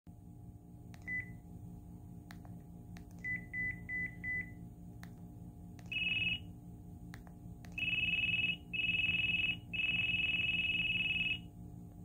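LG VX5200 flip phone's built-in alert tones played through its speaker: one short beep ('Low Beep Once'), then five quick short beeps ('Low Beeps'). These are followed by a single louder, higher beep ('Loud Beep Once') and three long loud beeps ('Loud Beeps'). Soft keypad clicks fall between them.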